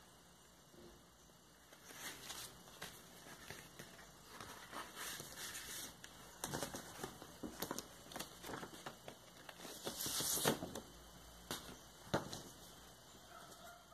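Paper and cardboard rustling and sliding as a vinyl LP's jacket and printed paper insert are handled, in irregular bursts; the loudest is a longer rustle about ten seconds in.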